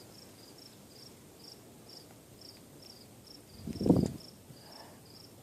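Insects chirping steadily in a regular pulse, a couple of short high chirps a second. About four seconds in, a short loud low thump or rustle.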